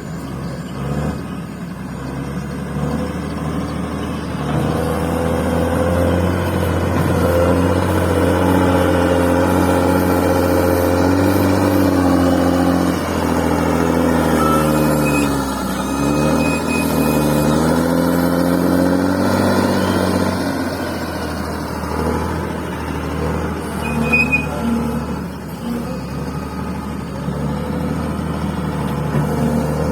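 Bulldozer's diesel engine working under load while pushing and spreading fill soil. The engine pitch climbs, wavers up and down through the middle and eases back about twenty seconds in.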